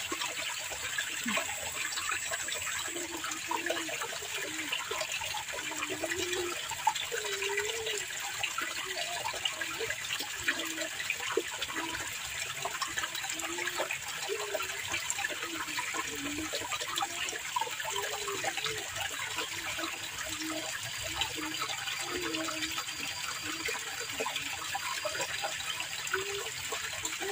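Water running in a rice-field irrigation channel: a steady rushing with low gurgles about once a second.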